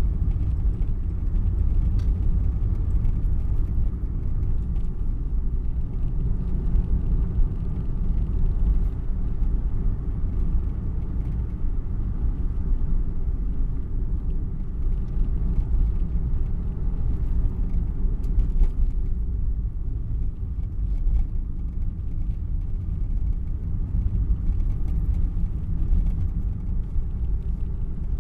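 Steady low rumble of a car's engine and tyres on pavement, heard from inside the cabin while driving, with a few faint clicks scattered through it.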